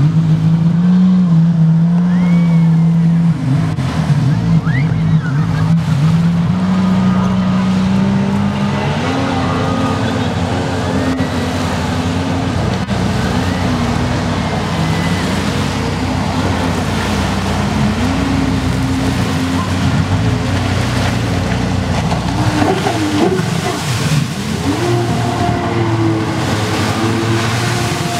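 Jet ski engine running at speed, its pitch stepping up and down several times as the rider works the throttle through turns, over the rush of water spray from the wake.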